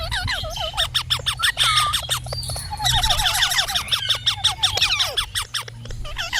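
Parrots calling in a fast, continuous run of short squawks and chirps. Many quick calls overlap, with repeated notes that swoop up and down, over a steady low hum.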